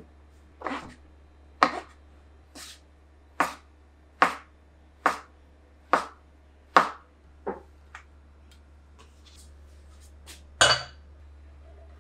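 Kitchen knife slicing king oyster and shiitake mushrooms on a wooden cutting board, a sharp knock at each stroke, a little more than one a second. A single louder knock near the end.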